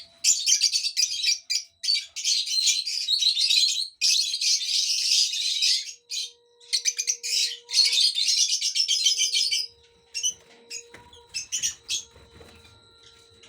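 Young lovebirds chirping in a dense, high-pitched chatter with short pauses. About ten seconds in the chatter stops, leaving only a few scattered chirps.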